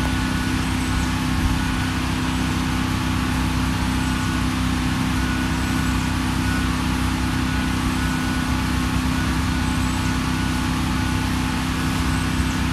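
Wood-Mizer sawmill's engine running at a steady speed, just after being started.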